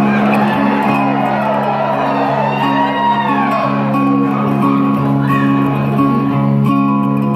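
Live acoustic guitar strummed in a steady chord pattern together with a second plucked string instrument, in an instrumental passage with no singing.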